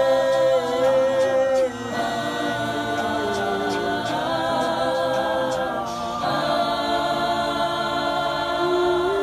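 A small a cappella group of men and women singing together in harmony. They hold long sustained chords that shift to a new chord a few times.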